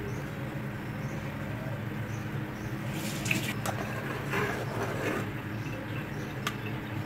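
Spicy curry gravy bubbling in an open pressure-cooker pot over a gas flame. From about three seconds in, a spatula stirs and scrapes against the pot with a few clicks.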